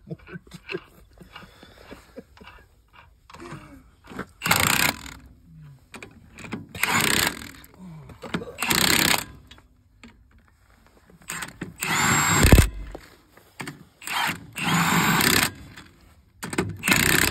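Power tool spinning a car wheel's lug nuts in about six short bursts of a second or less. The loudest burst comes a little past the middle and ends with a low thump.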